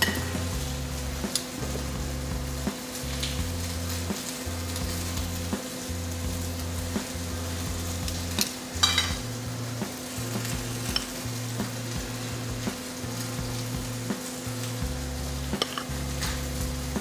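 Ribeye steak sizzling steadily in a hot pan, under a low steady hum. A few light clinks of metal utensils on a plate, the loudest cluster about nine seconds in.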